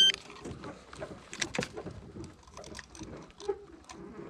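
A hand-held digital fish scale gives one short, high electronic beep as it is switched on, followed by scattered light clicks and knocks of handling.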